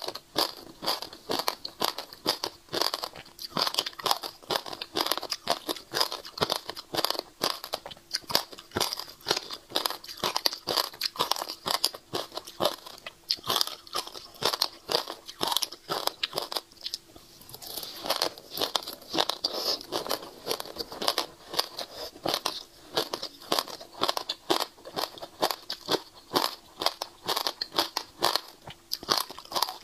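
Close-miked crunching and chewing of passion fruit seeds: rapid crisp crunches many times a second, with a brief pause a little past halfway.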